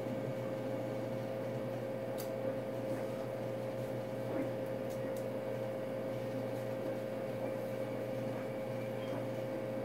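Steady machine hum with a constant mid-pitched tone, unchanging throughout, with a couple of faint ticks.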